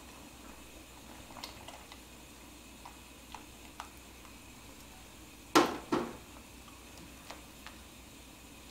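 Kitchen knocks against a soup pot: a few light clicks, then two sharp knocks about half a second apart a little past halfway, over the faint bubbling of the soup at a boil.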